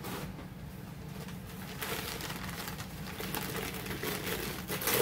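Rummaging through items: rustling with light knocks and clunks as things are moved and lifted, one louder knock near the end, over a steady low hum.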